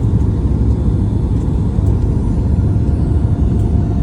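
Steady low rumble of airliner cabin noise during landing, from the engines and the airflow, with a faint steady whine above it.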